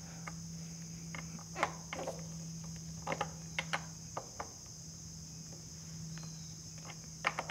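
Light metal clicks and taps of a hand tool turning a bar-end screw into a motorcycle handlebar, coming irregularly, over a steady high-pitched drone and a low hum.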